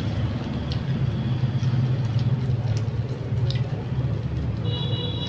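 Steady rumble of busy rush-hour street traffic passing outside. Near the end comes a brief high horn beep.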